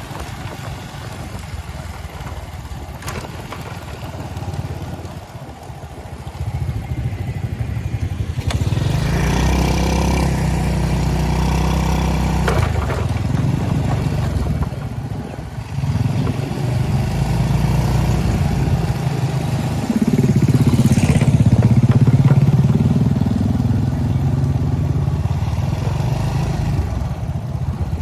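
Motor vehicle engines running, with vehicles passing close. The loudest pass comes about twenty seconds in, its pitch bending as it goes by.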